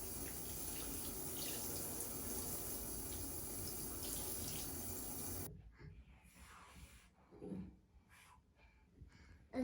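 Water running steadily for about five and a half seconds, as plants are watered, then stopping abruptly; a few faint small knocks follow.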